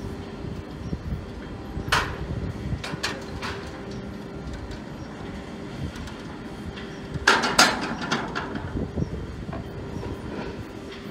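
Hand-worked wooden level crossing gates being swung shut and secured, with sharp metal clanks from their latches and stops, the loudest pair about seven seconds in. A steady low hum runs underneath.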